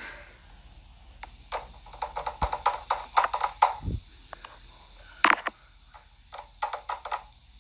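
Irregular light taps and clicks, with a quick cluster about two to three and a half seconds in and a sharper knock about five seconds in.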